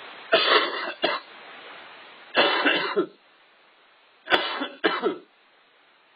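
A person coughing in three bouts about two seconds apart, two of them with a short second cough right after.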